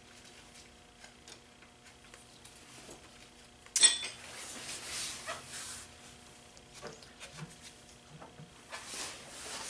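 Hand work on a small motorcycle's rear axle and chain adjuster: a sharp metallic clack about four seconds in, then a couple of seconds of rustling and scraping, followed by a few small clicks and another brief scrape near the end. A faint steady hum sits underneath.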